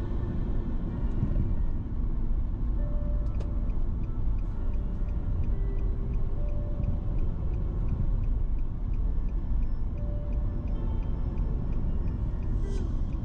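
Car driving: a steady low rumble of engine and road noise, with faint short tones scattered above it.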